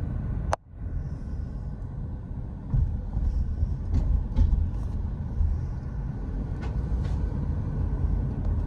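Steady low road rumble of a car driving, heard inside the cabin, with a sharp click and a brief dropout about half a second in.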